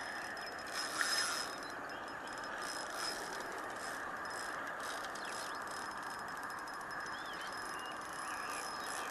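Spinning reel being worked while a hooked mullet is played: a faint mechanical whirr with light clicking from the reel's gears and drag.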